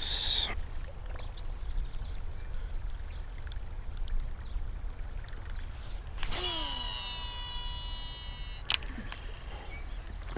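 Wind rumbling on the microphone. About six seconds in, a baitcasting reel's spool whines during a cast, falling in pitch for about two seconds before a sharp click.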